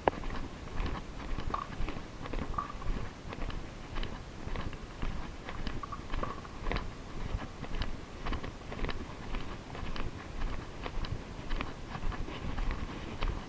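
Footsteps crunching on grit and debris at a steady walking pace, with sharp little crackles and clicks underfoot.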